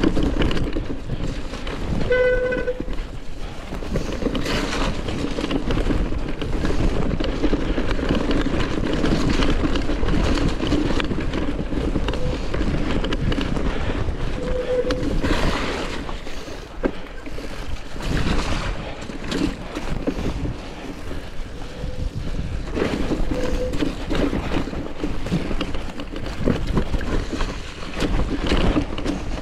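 Wind buffeting the microphone of a handlebar-mounted camera on a mountain bike descending a muddy, rocky forest trail, with tyres rolling through mud and the bike rattling over bumps. A few short squeals cut in now and then.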